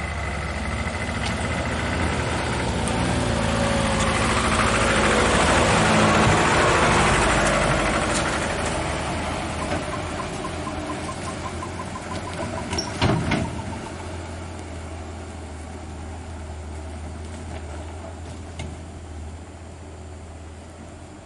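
Heavy truck's diesel engine rumbling as the truck draws near and passes, the noise swelling, peaking and then fading away. A short sharp clatter comes just past the middle.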